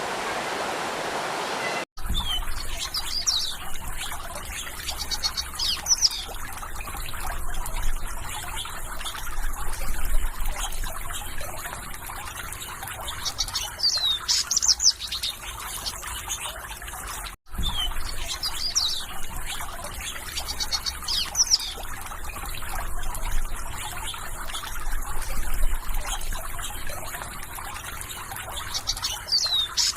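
Rushing water for about two seconds, then a cut to small songbirds chirping in quick, high, down-slurred notes over gently trickling water. The sound drops out for an instant twice, about two seconds in and again past halfway, and the same chirping pattern repeats after the second break.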